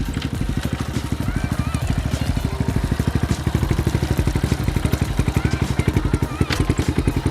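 Small motorbike engine running with a fast, even beat, growing louder as the bike rides toward the listener.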